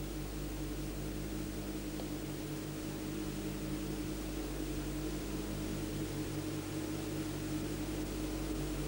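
Steady electrical hum over an even hiss, with a faint regular pulsing in the hum: the background noise of an old film soundtrack. No explosions or gunfire are heard.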